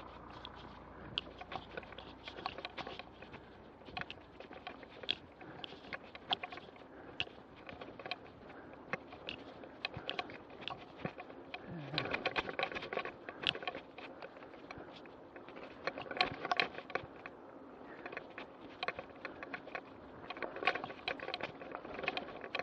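A mountain bike rattling over a bumpy grass-and-dirt cart track, picked up by an action camera mounted on the bike: constant irregular clicks and knocks over tyre noise, with heavier rattling about twelve and sixteen seconds in.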